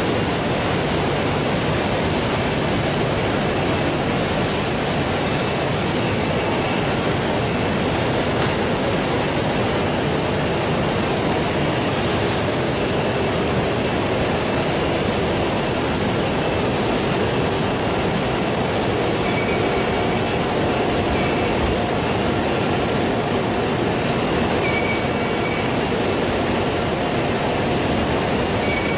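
Steady machinery noise from a running factory processing line, with faint clicking and some thin high tones in the second half.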